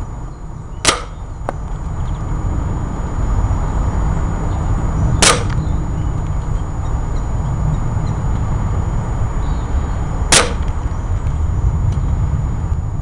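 Three sharp gunshots, roughly five seconds apart, fired at small target markers, with a faint click just after the first, over a steady low rumble.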